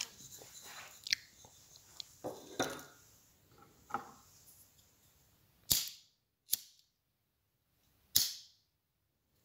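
A few small clicks and knocks, then three sharp cracks, the first and last a little longer than the middle one, with near silence between them.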